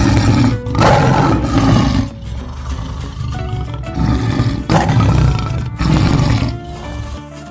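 Lion roaring: a series of about five deep roars and grunts, with background acoustic guitar music underneath.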